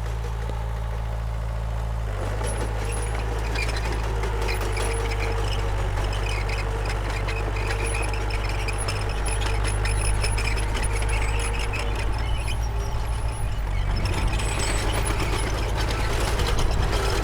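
Diesel engine of a Komatsu D31P crawler bulldozer running steadily under load, with metallic clattering and thin high squeals from the tracks and machinery. It gets somewhat louder in the second half.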